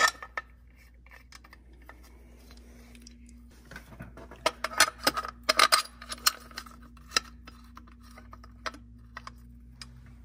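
Small metal clinks and rattles as the ZRP alternator's metal belt cover is fitted and its bolts set by hand, with the clatter bunched about four to seven seconds in.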